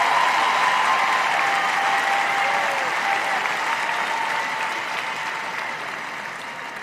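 A large arena audience applauding, the applause slowly dying down.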